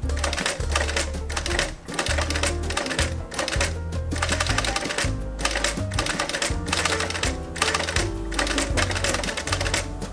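Background music with a bass line and a beat, over the clicking of an industrial sewing machine stitching a replacement zipper into a leather wallet.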